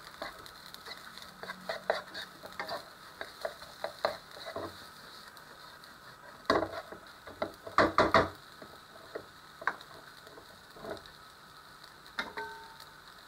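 Spatula scraping and tapping against a non-stick frying pan while rice is stir-fried and spread out over low heat, with light sizzling underneath. Scattered clicks throughout, and a few louder knocks about six to eight seconds in.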